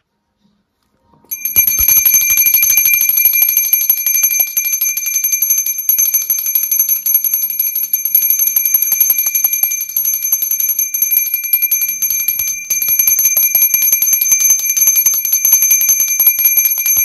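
Small brass puja hand bell (ghanti) rung continuously with rapid clapper strikes, a bright high ringing that starts about a second in. It is rung as part of a Hindu home puja.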